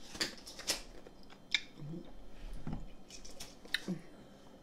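Close-up chewing and biting of hot chicken bites, with a few sharp crunchy clicks spread through and small low mouth sounds between them.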